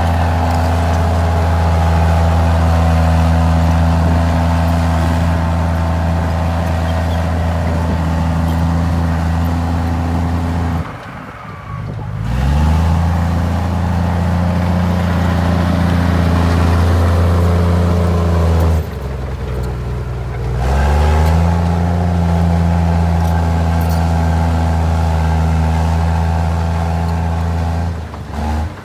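Komatsu D53E bulldozer's diesel engine running steadily and loudly. Twice the revs fall away and then climb back up.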